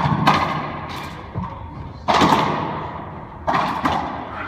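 Racquetball rally: a series of sharp cracks as the hollow rubber ball is struck by racquets and slams into the court walls, each crack ringing on in the enclosed court's echo. The strikes come at uneven intervals, with two in quick succession near the end.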